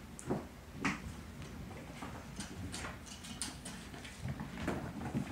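Kittens running and chasing on a hardwood floor: irregular soft thumps and taps of their paws, with two louder thumps in the first second.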